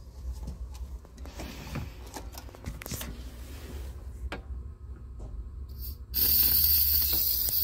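Compressed air hissing out of a dental unit's air hose as the valve on its fitting is opened, bleeding off line pressure after the clinic compressor has been switched off. The hiss starts suddenly about six seconds in and stays steady, after a few clicks and knocks as the hose fitting is handled.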